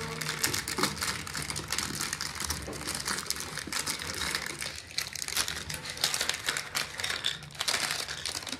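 Plastic biscuit wrapper crinkling and crackling as the packet is torn open by hand, with small irregular snaps as the biscuits are broken into pieces.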